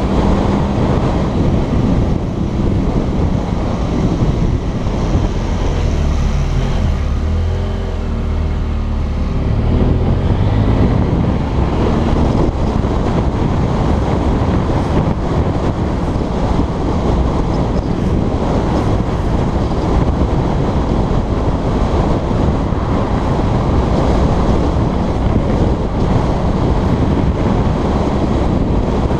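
Motorcycle riding at speed: heavy wind noise buffeting the microphone over the engine running underneath, its note dipping and then rising again about eight to ten seconds in.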